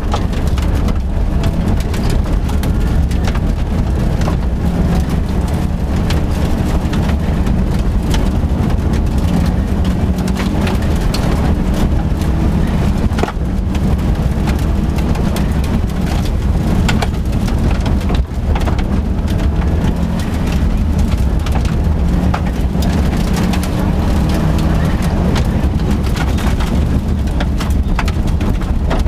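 Subaru Impreza GC8 rally car at speed on gravel, heard from inside the cabin: the flat-four engine is run hard through the gears, lifting briefly twice. Loose stones rattle and ping against the underside throughout.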